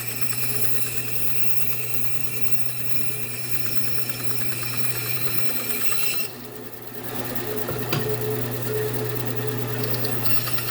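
An electric shop machine's motor running steadily with a rapid, even buzz; the high whine drops away for about a second, roughly six seconds in, then comes back.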